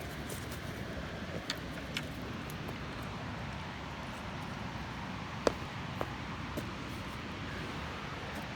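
Steady outdoor rushing noise with a few sharp clicks, the loudest about five and a half seconds in.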